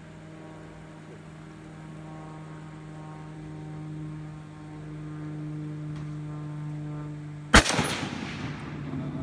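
A single shot from a Browning Automatic Rifle (BAR): one sharp crack about three-quarters of the way in, its echo dying away over about a second, over a steady low hum.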